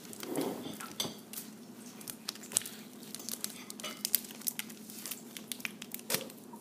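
Candy box and wrapped chocolates being handled: an irregular string of small hard clicks, taps and clinks.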